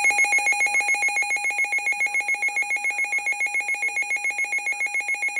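Weather radio's electronic alert alarm: a loud, high trilling beep pulsing about seven times a second, sounding for a severe thunderstorm warning.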